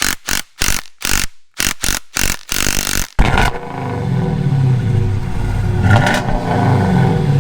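A string of short, sharp bursts with gaps between them, then an engine running continuously from about three seconds in, its pitch rising and falling as it is revved.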